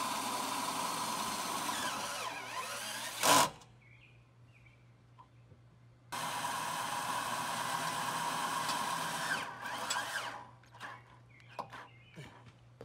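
Black & Decker cordless drill driving a self-drilling screw into a steel trailer frame. It runs in two stretches with a pause of a few seconds between them, its pitch wavering and dropping as it slows, with one loud sharp crack about three seconds in. Near the end it stops and starts in short bursts: the drill's battery is running flat.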